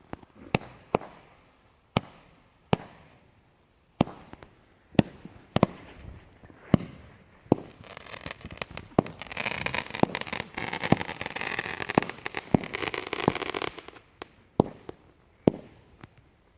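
A consumer multi-shot firework cake firing: sharp bangs every half second to a second, then a dense crackling barrage for about six seconds in the middle, then single bangs again.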